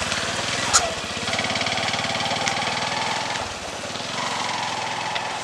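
A small engine running steadily with rapid, even firing pulses, and a sharp click about a second in.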